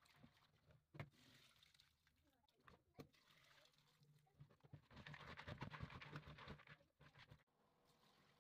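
Near silence: faint splashing of water as soaked beans are washed, louder for a couple of seconds in the middle, over a low hum.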